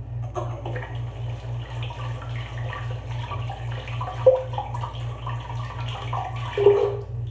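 Water running from a tap and splashing as cupped hands rinse soap lather off a face, with a low pulsing hum underneath. Two louder splashes come about four seconds in and near the end.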